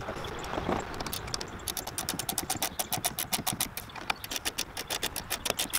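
Hand ratchet clicking rapidly as a bolt on the truck's tailgate bracket is turned, about seven or eight clicks a second, starting about one and a half seconds in after some handling sounds.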